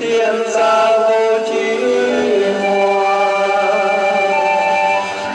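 Live group singing with instrumental accompaniment: several voices holding long notes together, stepping from one pitch to the next.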